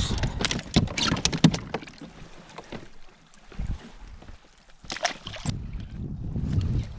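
Handling noise in a kayak: a quick run of clicks and knocks in the first two seconds, then quieter, then another short clatter about five seconds in, with a low rumble near the end.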